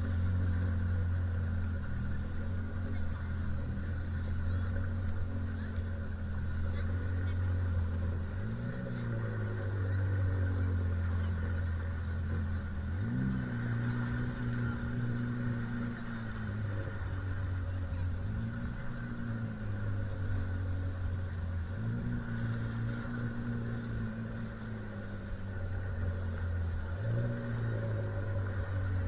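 Motorboat engine running steadily as it tows a banana boat, its pitch stepping up and easing back down several times as the throttle is opened and eased.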